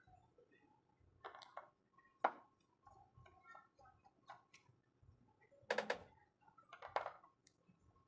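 Small metal repair tools and screws clicking and tapping while a smartphone is taken apart: a few sharp light ticks, with a quick cluster of clicks about two-thirds of the way in and another tap near the end.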